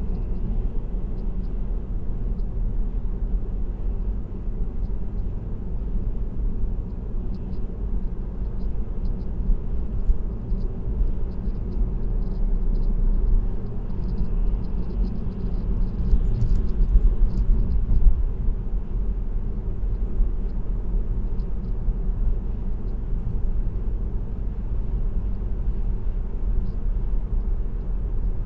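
Steady road rumble of a car cruising on an expressway, heard from inside the cabin: tyre and engine drone, swelling slightly about two thirds of the way through.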